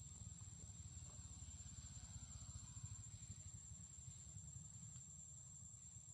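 Near silence: a faint, steady low rumble under a thin, steady high-pitched tone.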